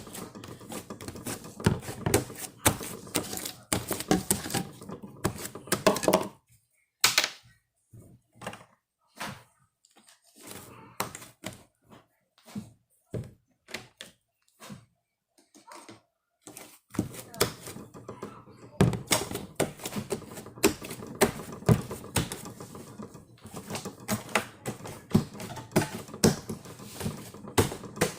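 Slime being squished and stretched by hand, a fast run of wet clicks and pops. The clicking is dense for about six seconds, thins out to scattered pops through the middle, and turns dense again near the end.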